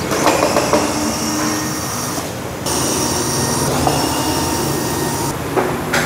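Steady mechanical hum with a high hiss that cuts out briefly about two seconds in and again near the end, with several sharp clicks or knocks near the start and just before the end.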